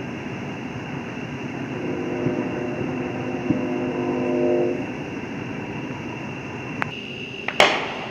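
A horn holds a steady chord of several tones for about three seconds in the middle, over steady outdoor background noise. A single sharp firework bang comes near the end.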